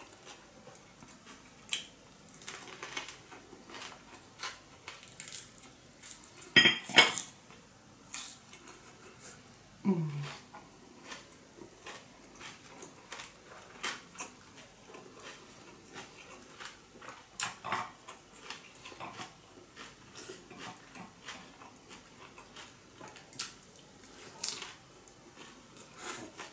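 Close-up eating sounds of someone chewing a fresh rice-paper spring roll filled with steamed fish and herbs. Wet mouth clicks and smacks are scattered throughout, with a louder clatter about seven seconds in.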